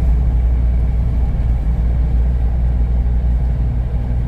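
Steady low rumble of a car driving, heard from inside the cabin: engine and tyres on a snow-packed road.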